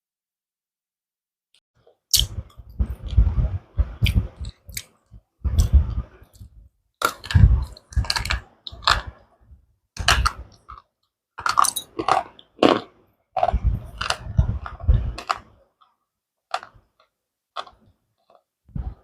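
Slate pencils being bitten and chewed, a run of crunching bursts starting about two seconds in and thinning to a few small clicks near the end.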